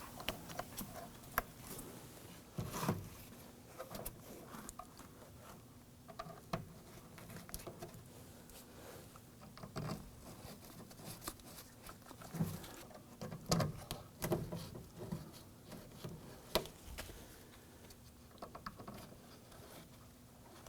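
Car door speaker being set into the door shell by hand: scattered light clicks, taps and plastic knocks, a few louder ones in the middle, over a faint steady hum.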